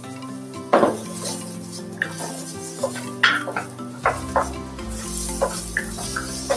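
Shrimp and garlic slices sizzling in a little oil in a stainless steel wok, stirred with a wooden spatula that scrapes and knocks against the pan a dozen or so times.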